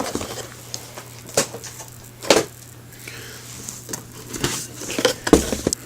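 Cardboard model-kit boxes being handled and set down: a few sharp knocks and taps with light rustling between them, over a faint steady hum.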